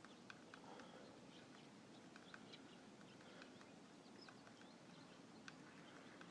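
Near silence: a low hiss with faint, scattered short ticks and chirps.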